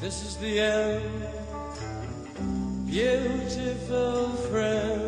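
Background music: a song with guitar and a sung melody line that glides up and holds its notes.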